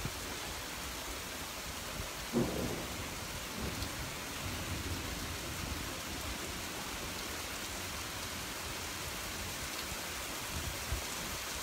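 Steady hiss of heavy rain falling on wet pavement, with a low rumble of thunder through the middle and a brief thump about two seconds in.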